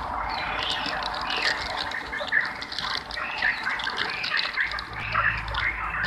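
Chorus of frogs calling at a pond during mating, many overlapping croaking calls that grow denser about halfway through.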